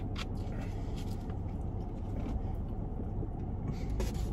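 Steady low rumble inside a parked car's cabin, with a few faint clicks and rustles of food and a bottle being handled.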